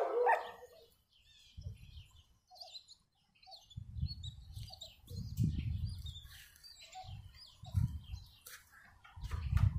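Small birds chirping here and there, with several dull low rumbles over them, the loudest near the end.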